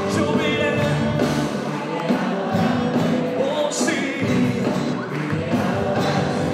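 Live Christian worship music: a band with acoustic and electric guitars playing while several voices sing into microphones.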